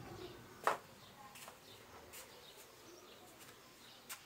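A few short, sharp clicks over a faint background, the loudest one under a second in.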